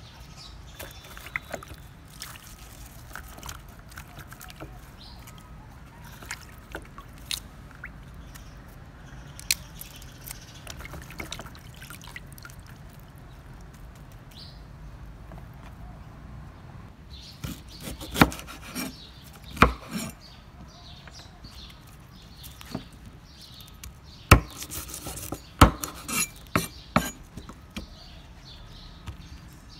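Water splashing and dripping as green onions and lemongrass are rinsed by hand in a plastic basin of water. In the last third come irregular sharp knocks of a cleaver on a wooden chopping board.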